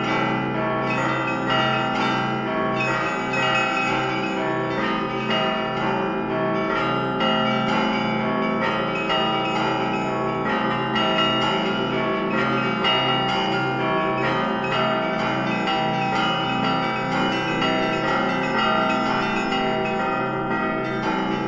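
Russian Orthodox church bells rung in a continuous, dense zvon: rapid strikes on small high bells over a steady repeated pulse of deeper bells, all ringing on together.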